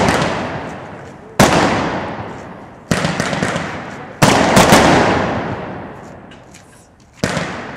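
WECO Cyborg 21-shot, 25 mm firework battery firing its shots: four sharp bangs one to three seconds apart, each dying away slowly in a long echoing tail.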